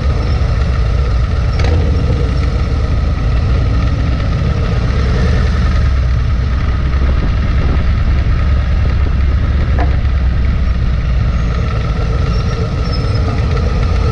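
Bagger motorcycle engine running steadily at low parade speed, a deep, constant rumble heard close up from the bike itself.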